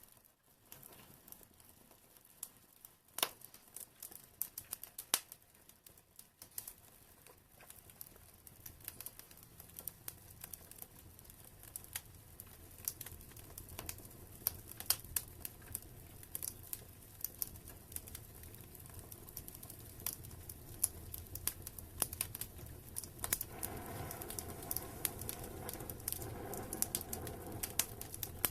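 Wood fire burning in a fireplace, crackling with many sharp pops over a low rumble of flames that grows louder as it goes.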